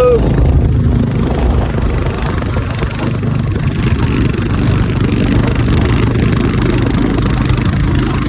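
Royal Enfield Bullet motorcycle's single-cylinder engine running steadily under way, with road noise.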